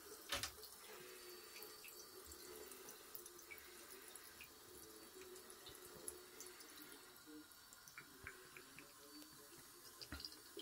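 Thin stream of water from a bathroom tap running into the sink basin, faint and steady, with small splashes and ticks as it falls onto a drinking cat's head. A single sharp knock about half a second in.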